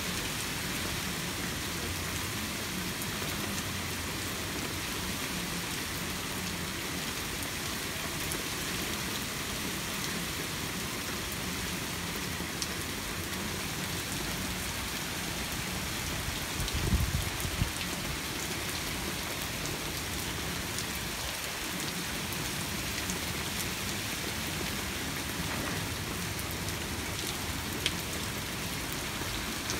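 Steady rain falling during a thunderstorm, an even hiss of rain on surfaces. About two-thirds of the way through comes a brief low rumble lasting about a second.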